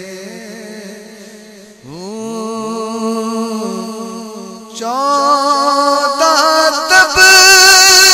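Naat singing: long, wordless held notes with a wavering pitch, stepping up in pitch about two seconds in and again near five seconds and growing louder toward the end.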